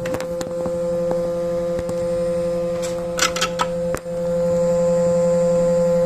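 Faulty headlight giving off a steady electrical buzz with a few scattered clicks; the buzz drops out briefly about four seconds in. It is the abnormal noise of a headlight fault.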